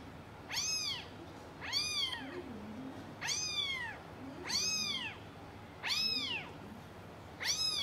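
Kitten meowing over and over: six short, high-pitched meows, each rising and then falling in pitch, about one every 1.3 seconds.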